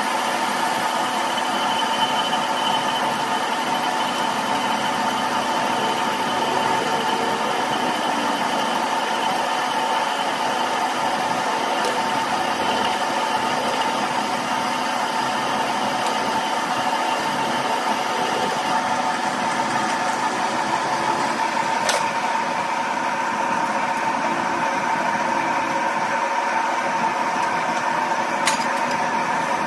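A machine running with a steady, even hum, with two brief sharp clicks in the second half.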